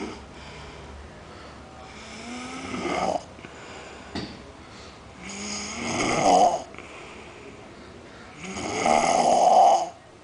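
Snoring: three long snores about three seconds apart, each swelling louder and then cutting off abruptly, with a brief sharp sound between the first two.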